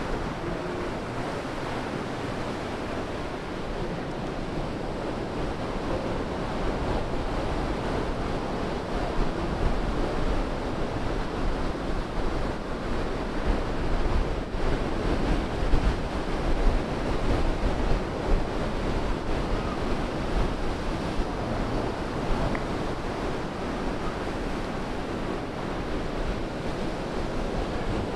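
Pacific Ocean surf breaking and washing up the sand in a steady rush, swelling louder around the middle, with wind buffeting the microphone in a low rumble.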